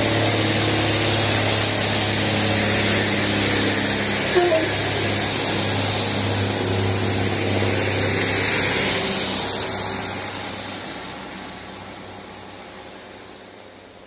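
Class 156 Super Sprinter diesel multiple unit pulling away under power: its underfloor diesel engines run with a steady low drone and a broad hiss over it. The sound fades steadily over the last few seconds as the train draws away.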